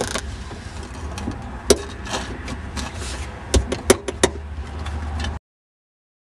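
Hands working under a car seat: rustling and a few sharp clicks of metal hardware against the seat rail, over a steady low hum. The sound cuts off abruptly near the end.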